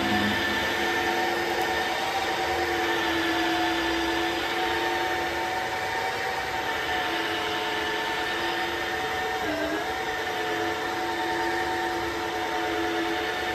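Simplus S-Clean V2 cordless wet-dry vacuum running in dry-mopping mode: a steady motor whine with several held tones over a hiss of airflow. Its pitch dips briefly about ten seconds in, then comes back up.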